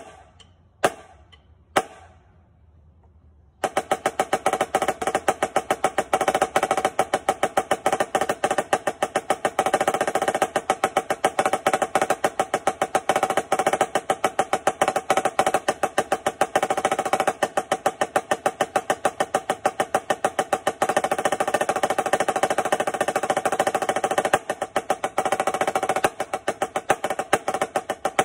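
Marching snare drum played with sticks: two sharp clicks count off, then from about three and a half seconds in, a continuous run of fast rolls with regular accents, at about 136 beats per minute.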